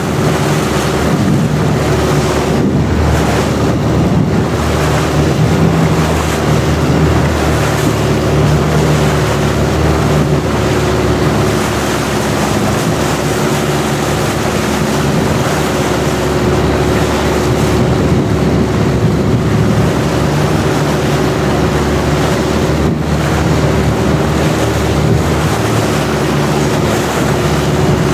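Long-tail boat's engine running steadily under way, a loud, even drone, mixed with wind on the microphone and the rush of water.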